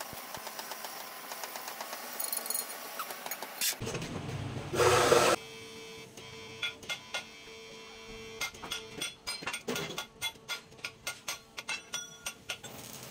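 Stick (arc) welding on steel crackling and sizzling for the first few seconds, followed about four seconds in by a brief loud rush of noise. From then on a chipping hammer knocks slag off the fresh weld on the steel flange in a run of sharp taps, about three a second.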